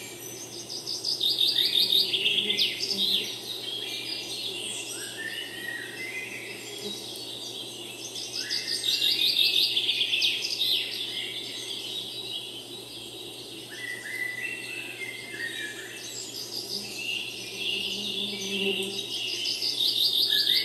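Woodland songbird singing: a fast trill of about two seconds, falling in pitch, repeated three times about eight seconds apart, with shorter chirps from other birds in between.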